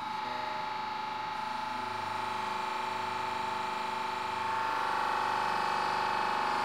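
Hydraulic press running under power as its ram presses down on a 3D-printed PLA cylinder: a steady mechanical whine from the pump, which grows louder about four and a half seconds in as the press takes up load.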